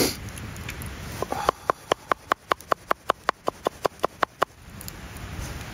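Broad-bladed knife chopping yuzu peel on a wooden cutting board: a quick, even run of about eighteen taps, about six a second, stopping about four and a half seconds in. It starts with a short sniff.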